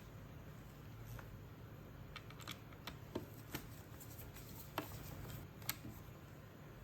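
Scattered light clicks and taps, about eight in all and irregularly spaced, over a faint steady low hum: small plastic parts being handled during work on a cordless stick vacuum.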